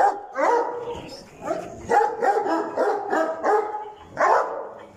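Bully-type dogs barking repeatedly, about two barks a second, some barks sliding in pitch.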